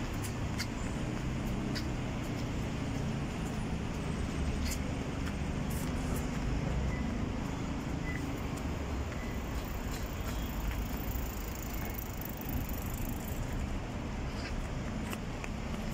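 Steady low rumble of road traffic, with scattered faint clicks.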